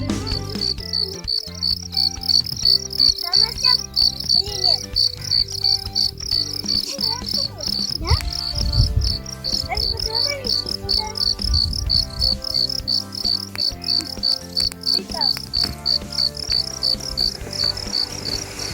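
Insects, cricket-like, chirping in a high, even pulse of about four chirps a second, with low held tones underneath.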